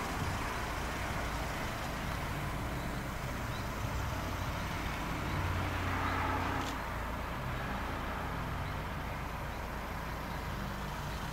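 Steady outdoor ambience of distant road traffic, with one vehicle swelling a little louder and fading away about five to seven seconds in.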